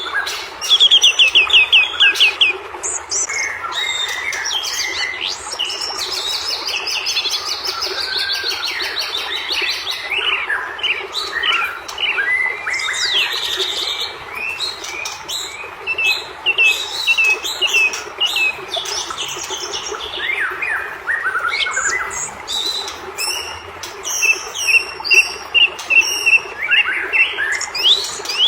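White-rumped shama (murai batu) in fired-up, aggressive song: a continuous run of varied whistles, sweeps and fast trills, with a loud rapid trill about a second in. A steady low hiss lies underneath.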